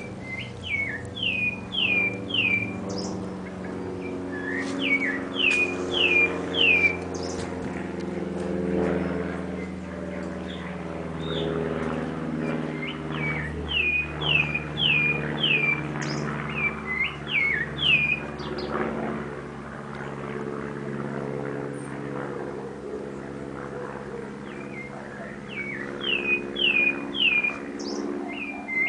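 A sabiá thrush singing: short phrases of three or four quick, falling whistled notes, repeated every few seconds, over a steady low hum.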